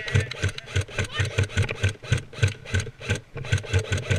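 Rapid, even footfalls of an airsoft player running, about four or five a second, with kit rattling on each step.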